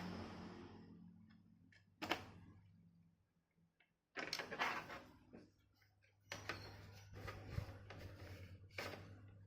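Sharp clicks and short clattering rustles of hands working on a laptop's plastic casing and its small screws during reassembly, coming in scattered bursts.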